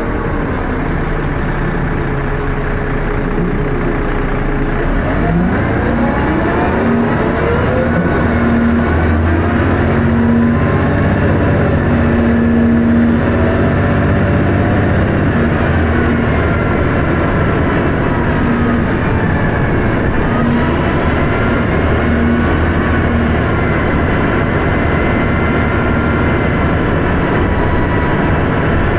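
Dennis Arrow double-decker bus under way, heard from on board: the diesel engine runs steadily, with its pitch climbing sharply about five to seven seconds in as the bus accelerates through its ZF automatic gearbox. A thin whine from the driveline rises and falls over the engine noise.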